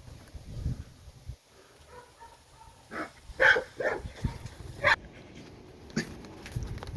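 A dog barking a few short times, about three to five seconds in.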